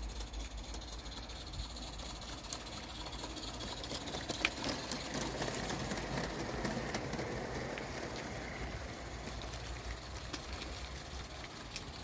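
Garden-scale model train, a small locomotive hauling coaches, running along the track: a steady rushing rumble of wheels on rail that swells as it passes, about five to eight seconds in, with one sharp click about four seconds in.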